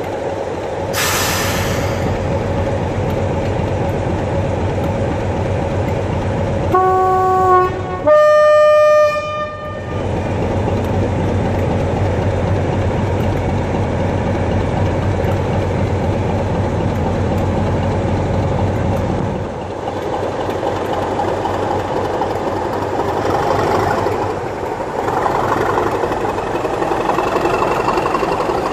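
Class 37 diesel locomotive's English Electric V12 engine running steadily. There is a short hiss of air about a second in, then the two-tone horn sounds a low note and then a high note, about three seconds in all. The engine note dips and then builds again in the last few seconds as the locomotive starts to pull away.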